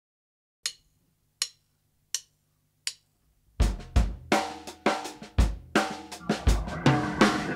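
Four short count-in clicks, evenly spaced about three quarters of a second apart. About three and a half seconds in, a funk band comes in together: drum kit, bass, electric guitar and keyboard playing a steady groove.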